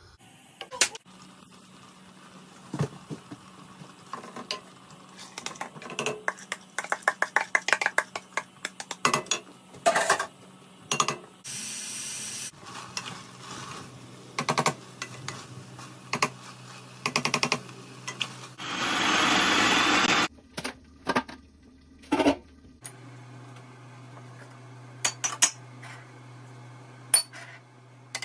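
A wooden spoon stirring a pot of meat and lentils, knocking and scraping against the steel pot in a long run of clicks, over a steady low hum. About two-thirds through comes a loud rushing noise lasting about a second and a half.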